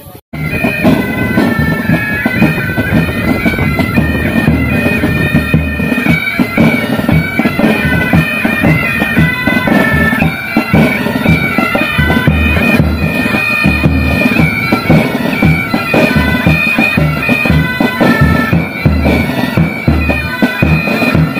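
Military pipe band playing a march: bagpipes sounding a melody over steady drones, with snare drums and a bass drum beating time. The music cuts in abruptly just after the start.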